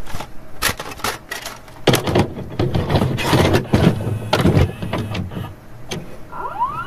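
Glitch-style intro sound effects: irregular bursts of static and stuttering clicks, with a few rising sweeps near the end.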